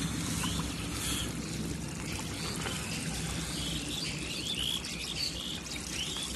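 Water splashing and sloshing as a mass of fish thrash in shallow muddy pond water, with birds chirping now and then.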